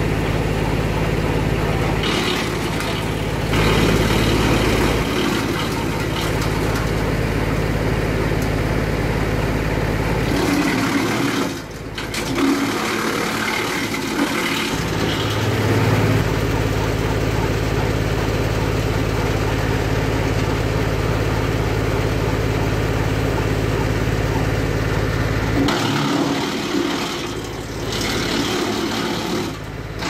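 Tractor engine running steadily, driving a PTO-driven wood chipper through its power take-off, with branches chipped at times.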